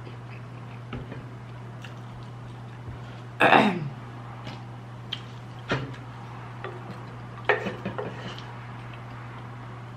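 Close-up eating sounds of a person eating shrimp and rice: a short throat clear whose pitch falls, about three and a half seconds in, then wet smacks and clicks of chewing over a steady low hum.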